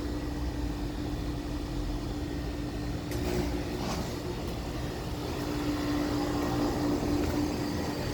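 A brand-new 2-ton Carrier Sentry heat pump outdoor unit running steadily: a compressor and fan hum with one held tone. A couple of faint rustles come about three to four seconds in.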